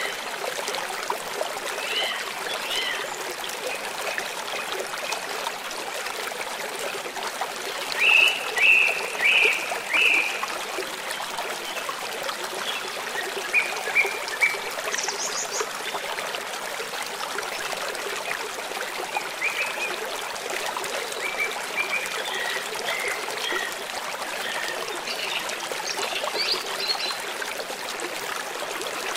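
Stream water trickling and running steadily, with birds calling over it: a run of four loud calls about eight seconds in, and scattered shorter chirps through the rest.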